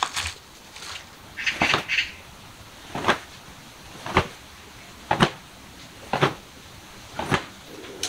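Slow footsteps in slide slippers, a sharp slap about once a second for five steps, after a short scuffle near the start.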